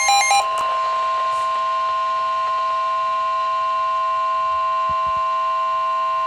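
Emergency Alert System attention tone: a loud, steady two-pitch tone held without a break, announcing a special marine warning. A few rapid beeps sound over it in the first half second.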